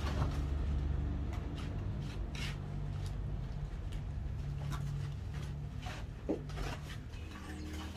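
A shovel scraping and dabbing wet mud and coals along the edge of a corrugated metal lid, sealing a pit oven: scattered short scrapes and knocks over a steady low hum.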